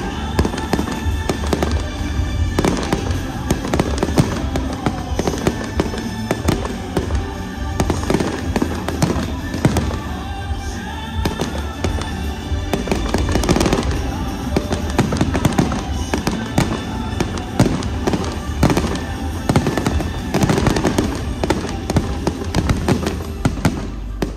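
Musical fireworks display: dense, rapid fireworks bangs and crackling over the show's accompanying music.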